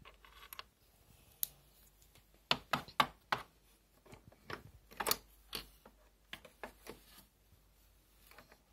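Light plastic clicks and taps at irregular intervals, bunched about two and a half seconds in and again around five seconds: Playmobil figures and toy pieces being handled and set down.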